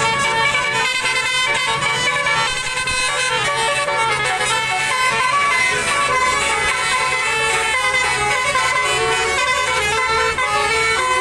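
Multi-tone 'telolet basuri' bus horn playing a fast tune of quickly changing notes, over the steady low sound of the bus engine.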